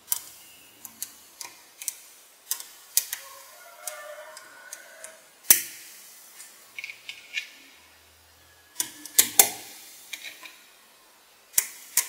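Small metal magnetic balls clicking as they snap together onto a cylinder built of the balls: irregular sharp clicks, the loudest about five and a half seconds in and a quick pair a little after nine seconds.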